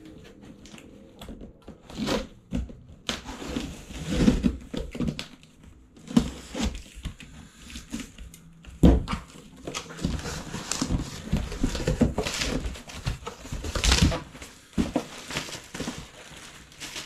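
Cardboard shipping box being opened: packing tape slit with a box cutter, flaps pulled back and papers and foam packing shifted, making irregular scrapes, rustles and sharp knocks.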